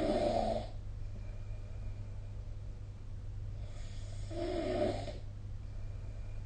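A sleeping person snoring: one snore right at the start and another about four seconds in, over a steady low hum.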